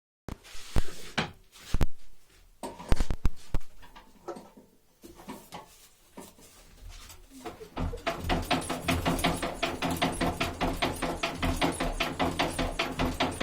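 ZAZ 968M's air-cooled V4 engine running with a rapid, even knocking, the engine knock being examined. It comes in about halfway, after several seconds of scattered clicks and thumps.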